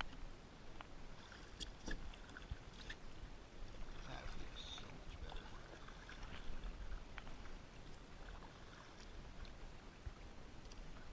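Water lapping and splashing against a kayak hull, with scattered light clicks and knocks on the deck and a slightly busier splash about four seconds in.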